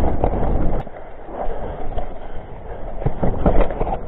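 Mountain bike riding down a rough, wet trail: tyres rolling over dirt with short rattling knocks from the bike over a low rumble, which eases about a second in.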